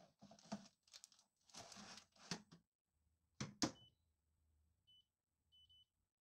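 Baking paper rustling and the tray scraping as it slides into an air fryer oven, then two sharp clacks as the oven door shuts about three and a half seconds in. These are followed by four or five short, high beeps from the oven's touch control panel as it is set.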